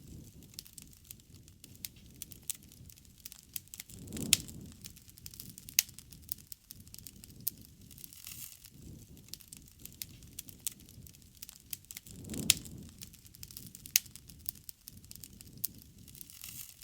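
Wood campfire crackling, with frequent sharp pops and snaps over a low rumble of burning; two louder swells, each with a sharp crack, come about four and twelve seconds in.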